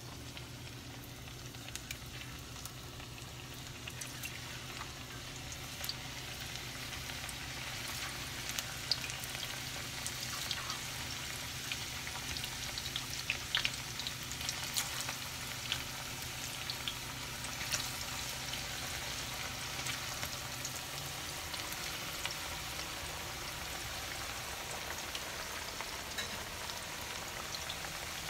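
Green banana slices deep-frying in hot oil in a cast-iron skillet: a steady sizzle with scattered crackling pops, busier from about eight seconds in. A low steady hum underneath stops about two-thirds of the way through.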